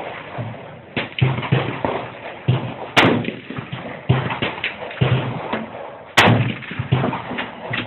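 Two loud gunshots from a .30-30 revolver about three seconds apart, each with a ringing tail, among smaller knocks and clicks.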